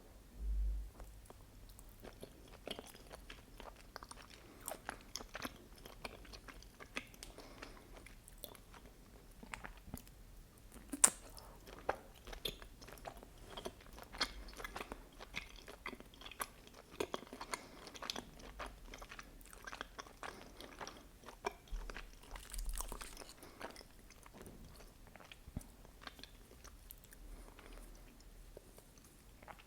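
Close-miked chewing of soft, sticky mochi with red bean paste: irregular wet smacks and small mouth clicks, with one sharper click about eleven seconds in. Two brief low thumps, one near the start and one about two-thirds through.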